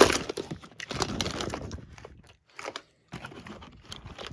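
Plastic fidget toys clattering and rustling as hands rummage through a bucket of them: irregular clicks and crinkles, loudest at the start.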